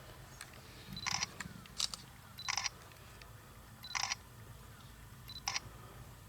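Camera shutter firing about five times at irregular intervals of one to one and a half seconds, several shots preceded by a short high beep.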